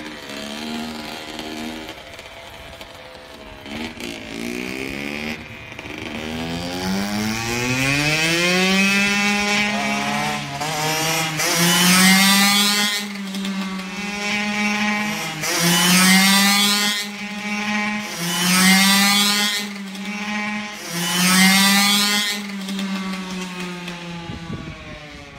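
Kawasaki KX85 two-stroke single-cylinder dirt bike engine, fitted with a 12-oz Steahly flywheel weight. It putters at low revs at first, then climbs in pitch as the bike pulls away, and rises and falls in several loud swells of throttle. It fades near the end.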